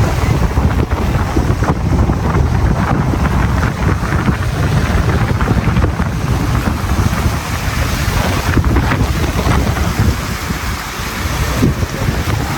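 Gusty wind buffeting the microphone: a loud, uneven low rumble that swells and eases.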